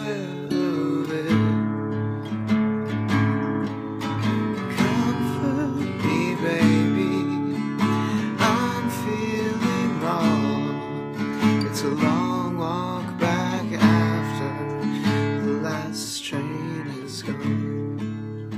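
Acoustic guitar strummed in a steady rhythm, with a man singing a country-folk song over it.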